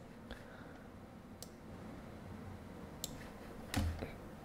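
Faint, sparse computer mouse clicks, a handful spread over a few seconds, over quiet room hum. There is a short low thump near the end.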